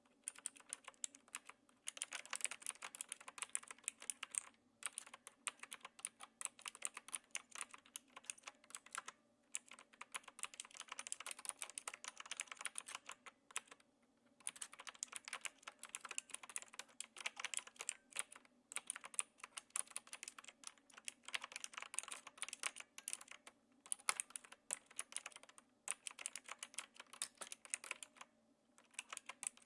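Typing on a Knewkey Rymek typewriter-style mechanical keyboard with clicky blue switches. The keys go in fast, continuous runs of clicks, broken by brief pauses every few seconds.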